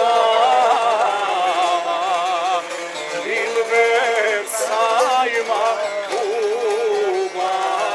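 Voices singing a traditional Bosnian folk song in long, wavering, ornamented lines, accompanied by plucked long-necked lutes.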